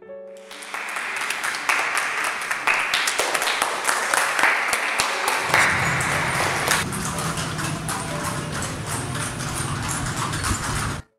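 Crowd applause, a dense patter of many sharp claps, with a low rumble joining about halfway through; it cuts off suddenly near the end.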